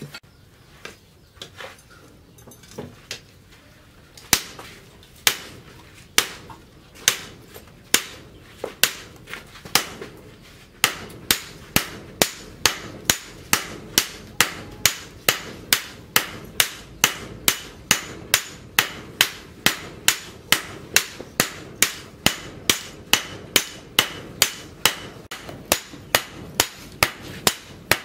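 Hammers striking a red-hot leaf-spring blade on a steel post anvil, a sledgehammer among them, forging it into a cleaver. After a few scattered blows the strikes settle into a steady beat of about one a second, then quicken to about two a second.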